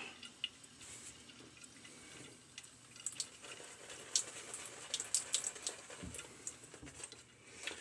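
Small shaving brush with a Timberwolf knot working shaving soap into lather: soft, wet crackling and squishing with scattered faint ticks, starting a couple of seconds in.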